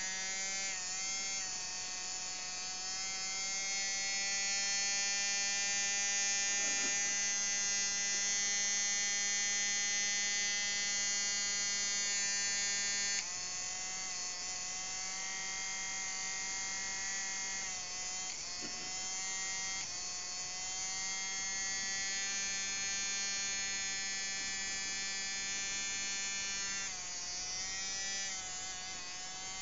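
Electric pet nail grinder running on its own, a steady high buzzing whine made of many tones. Its pitch dips briefly a few times and drops a little about halfway through.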